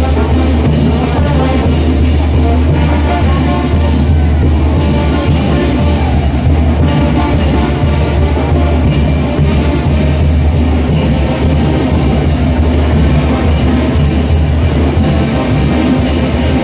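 Mexican brass banda playing a chinelo dance tune, loud, with a heavy bass line under a steady beat of drums and cymbals.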